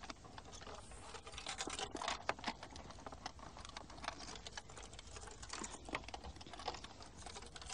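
Irregular soft clicks, knocks and rustles of two box-like backpacks and their straps being handled, shuffled about and set down on grass.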